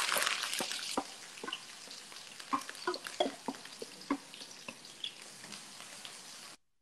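Chopped onions and curry leaves sizzling in hot oil with fennel seeds in a frying pan, loud at first as they go in, then settling to a softer hiss with scattered pops and clicks as a wooden spatula stirs them. The sound cuts off suddenly near the end.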